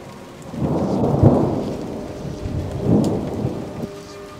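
Thunder rolling over steady rain: a first deep roll starts about half a second in and is the loudest, a second follows around three seconds, and both die away before the end while the rain hiss goes on.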